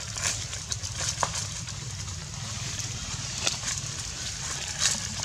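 Dry fallen leaves crackling and rustling under a long-tailed macaque's hands and feet as it walks, in scattered irregular crackles over a steady low rumble.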